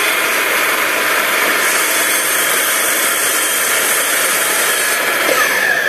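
Miter saw running at full speed: a loud, steady motor and blade whine. Near the end a falling tone comes in as the blade begins to spin down.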